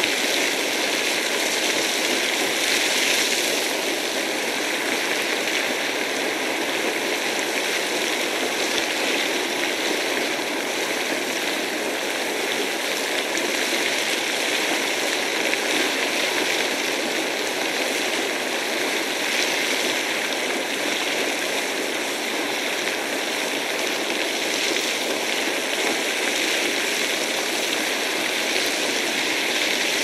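Thermal spring geyser sending up a continuous spout of boiling water: a steady, unbroken noise of gushing water.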